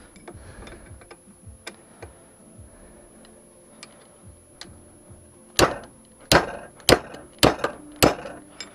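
Faint clicks of tools being handled, then five sharp hammer blows on metal, about 0.6 s apart, each with a short ring.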